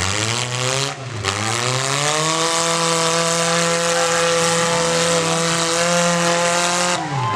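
Demolition derby car engine revving up over about two seconds and held at high revs, then dropping off near the end.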